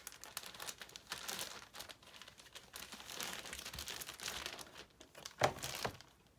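Plastic packaging crinkling and rustling in irregular handling noise as a CGC-graded comic slab is taken out of its shipping box, with a brief louder sound about five and a half seconds in.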